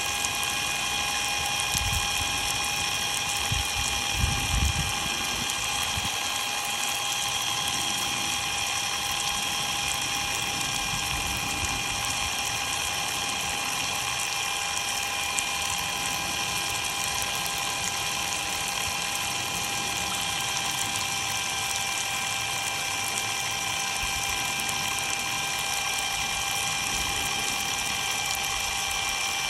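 Ryobi cordless impact driver running free with a steady high-pitched motor whine while water sprays over it and its uncovered battery board, the spray making a constant hiss. A few low thumps come between about two and five seconds in.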